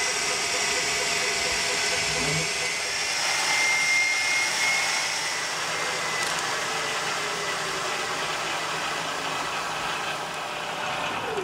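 Super 8 film-processing machine running steadily at its marked optimum speed: a continuous mechanical whir and hiss with faint steady whines, and a short falling whine near the end as the sound drops away.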